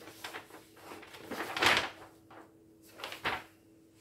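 Handling noises from an embroidery kit being sorted through by hand: short rustles and knocks, the loudest about a second and a half in and a shorter one near the end.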